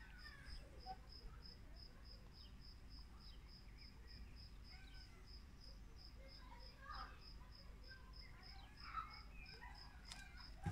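Faint outdoor ambience: a cricket chirping steadily at a high pitch, about three chirps a second, with faint scattered bird chirps.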